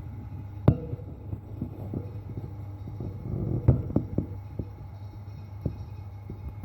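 Otter snoring in its sleep: low, rough breathing over a steady low hum, with scattered soft clicks and one louder swell about halfway through.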